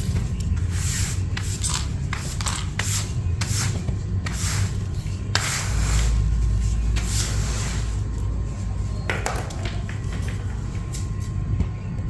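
Quick rubbing strokes, about three a second, for the first five seconds or so, then sparser strokes over a low rumble.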